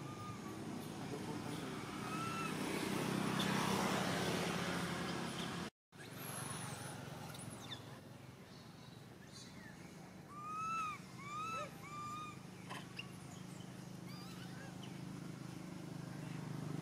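A steady low engine hum with a louder noisy swell a few seconds in, and a run of four short, arched, chirping animal calls about ten seconds in, with a few fainter calls earlier.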